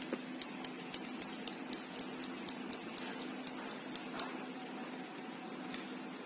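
A quick, uneven series of light clicks and taps from plastic kulfi moulds and their lids being handled, thinning out after about four seconds, with one more click near the end. A steady low hum runs underneath.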